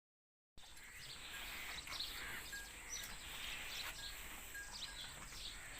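Faint outdoor ambience with a few short bird chirps scattered through it and a thin steady high hiss.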